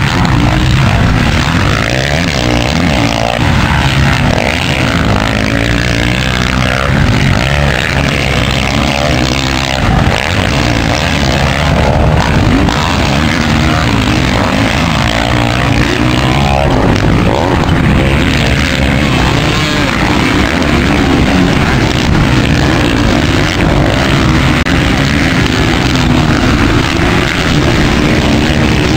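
Several 450-class motocross dirt bikes racing round the track, their engines revving up and down through the gears with overlapping engine notes rising and falling.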